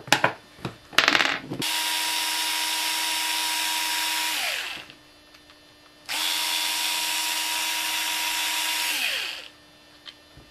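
A few handling clicks, then a cordless drill/driver runs twice, about three seconds each time, with a steady whine that falls in pitch as the motor spins down at the end of each run. It is backing out the screw that holds the motor's bearing bushing in place.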